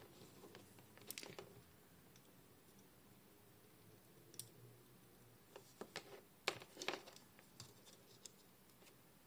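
Kelvin test clips of an LCR meter handled and snapped onto a small capacitor's leads: scattered faint clicks and scrapes over a quiet room, the loudest pair about six and a half and seven seconds in.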